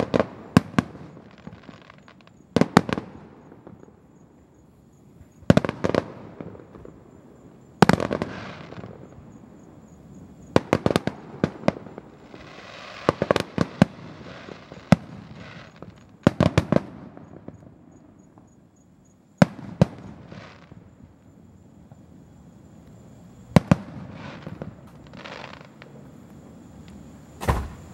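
Aerial fireworks shells bursting one after another at irregular intervals: sharp bangs, some in quick clusters of two or three, each trailing off in an echoing rumble. There is a stretch of crackling in the middle.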